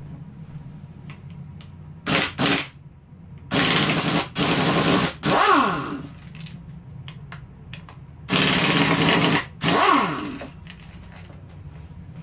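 Cordless power tool run in bursts to back out the front brake caliper's mounting bolts: a couple of short blips, then two longer runs about four seconds apart.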